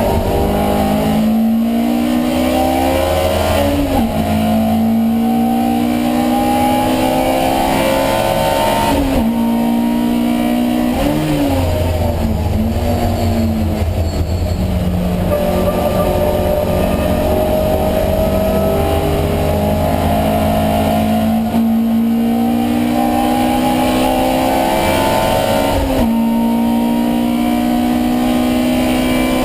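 Alfa Romeo Giulia 1600 twin-cam four-cylinder racing engine heard onboard at full throttle, its pitch climbing through each gear and dropping at about half a dozen upshifts. About a third of the way in the revs fall and waver briefly as the driver lifts and changes down, then it pulls up through the gears again.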